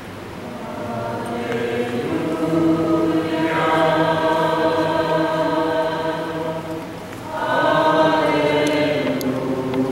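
Choir singing Orthodox liturgical chant in long held chords. The phrases swell in about a second in, and after a short break about seven seconds in the voices come back.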